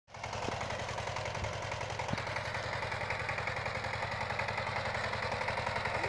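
Two-wheel walking tractor's single-cylinder diesel engine running steadily under load while pulling a plough through soil, a fast, even chugging.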